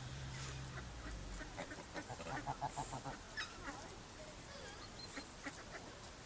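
Faint bird calls: a quick run of short honking calls about two seconds in, then a few scattered calls. A low hum fades out about a second and a half in.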